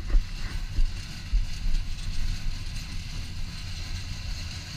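Passenger train running, its wheels clattering over the rail joints with a low rumble and repeated knocks.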